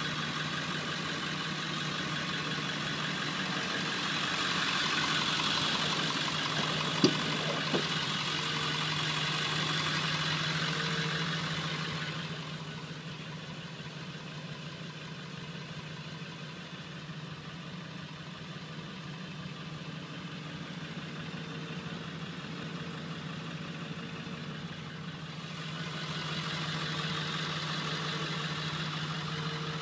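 2000 Ford F-350's 7.3-litre Power Stroke V8 turbo diesel idling steadily, with two sharp clicks about seven seconds in. The engine sound goes quieter and duller for a stretch in the middle, then comes back.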